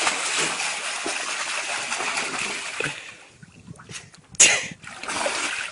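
Water splashing and churning as a person wades and gropes in shallow floodwater, steady for the first three seconds, then quieter, with one sharp splash about four and a half seconds in.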